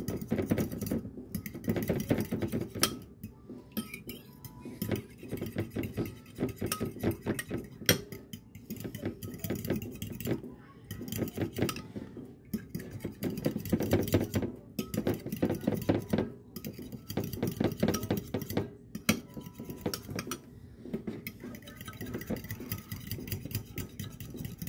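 A fork beating eggs in a bowl: rapid, continuous clinking of metal against the bowl, broken by short pauses every few seconds.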